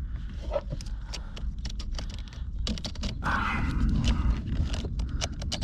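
Irregular small plastic clicks, taps and rustling from hands working the seat's electrical connector plugs into their sockets under a Porsche Boxster seat, over a steady low rumble.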